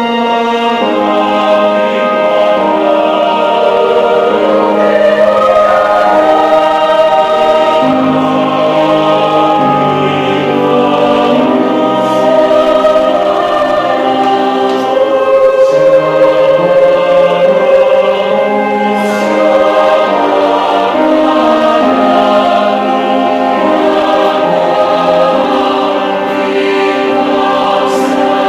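Church choir singing a hymn, many voices together holding and changing sustained notes.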